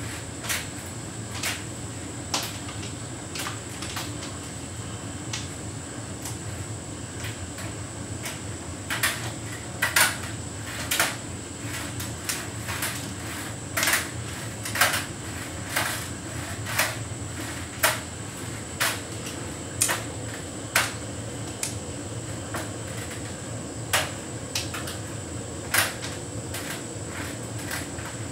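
Hotpoint heat pump tumble dryer running a synthetics cycle: a steady hum with a thin high whine, and sharp knocks as the load tumbles and hard bits strike the drum, often about once a second and most frequent in the middle.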